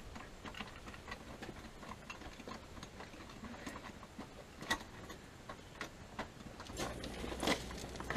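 Faint, irregular clicks and taps of a door lock being worked, with one sharper click about halfway through. A few louder knocks of footsteps on the porch come near the end.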